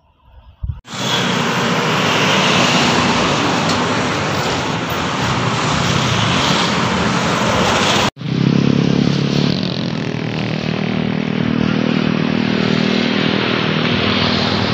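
Loud, steady rush of bus engine and road noise. An abrupt cut about eight seconds in switches to another stretch of bus engine noise with a low hum.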